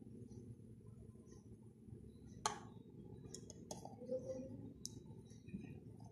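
A handful of light, sharp clicks and clinks of a metal spoon against a glass ghee jar and a glass mixing bowl as ghee is scooped out and dropped in, over a low steady background hum.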